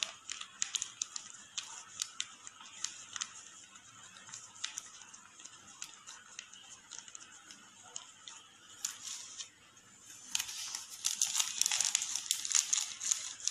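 Thin plastic sheet crinkling and crackling as it is rolled by hand into a tight cone for a piping bag, with scattered sharp crackles that grow denser and louder near the end.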